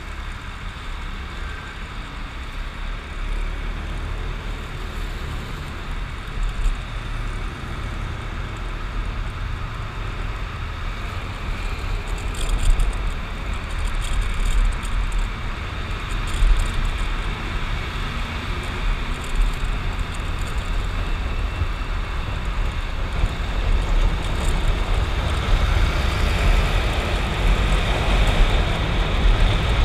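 Motorcycle riding in traffic: a steady rush of wind and engine noise with deep rumble, growing gradually louder through the clip.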